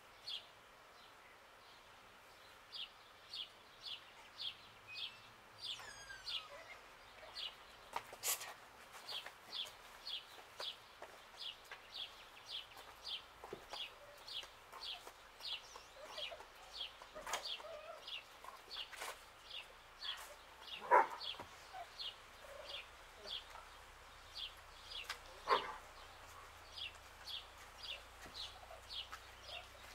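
Bird chirping, a short high note repeated about twice a second, with a few louder, lower calls past the middle and one sharp knock about eight seconds in.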